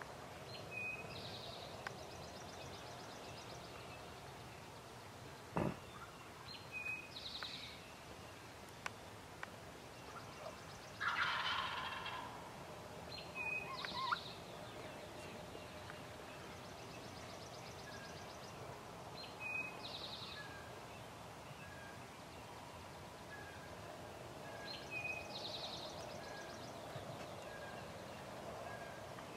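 A wild turkey gobbler gobbles once near the middle, a loud rattling call lasting about a second. Small songbird calls repeat every few seconds around it, and there is a single sharp knock about five seconds in.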